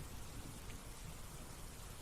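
Faint, steady hiss of background noise, with no distinct event.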